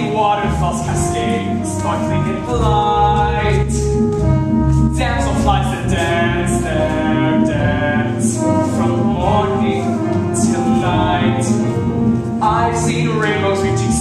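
Musical-theatre song: voices singing held, gliding notes over an orchestral accompaniment.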